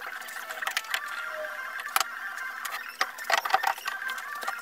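Hand tool scraping the cut end of a steel square tube, with scattered sharp metallic clicks as it knocks against the steel.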